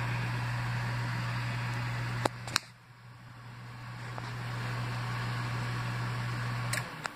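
Microwave oven running with a steady low hum and fan noise. Two sharp clicks come about two seconds in, after which it runs quieter. Near the end the hum dies away with a click as the oven shuts off.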